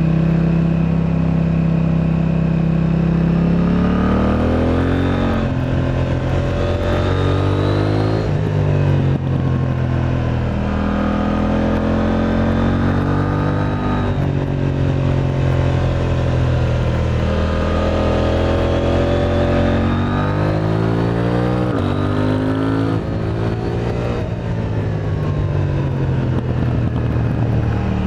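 KTM 890 Duke R's parallel-twin engine through an Akrapovic exhaust, running at a steady pitch for the first few seconds, then revving up and dropping back several times, the pitch climbing and then falling away.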